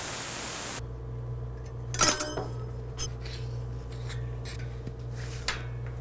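Air hissing out of a bicycle tire's valve as the tube is let down, stopping about a second in. Then the tire is worked off the metal rim with rubbing and light clinks, and a sharp clank with a brief ring about two seconds in.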